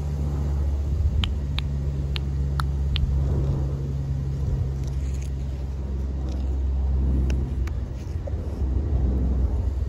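Adelaide Metro 3000 class diesel-electric railcars' engines running with a steady low hum out of sight. A handful of short, sharp high ticks stand out over it, several about a second in and a few more near the end.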